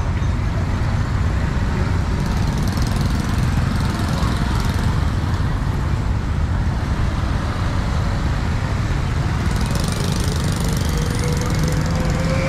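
Steady street traffic with engine rumble, and an engine's pitch rising slowly near the end.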